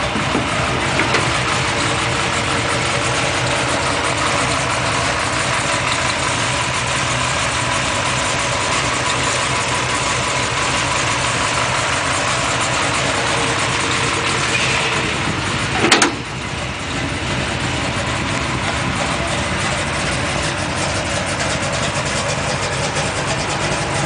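383 stroker small-block Chevy V8 idling steadily, with one brief sharp noise about two-thirds of the way through.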